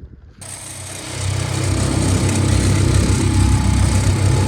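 Small 5-horsepower outboard motor on a rented fishing boat, running steadily under way, getting louder over the first second or so and then holding.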